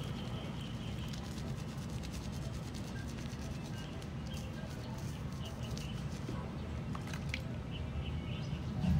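Steady low outdoor rumble with faint, scattered bird chirps.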